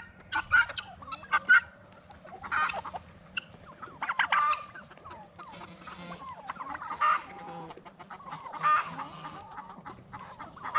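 Several backyard chickens clucking and calling: short sharp calls early on, then separate louder squawks every second or two.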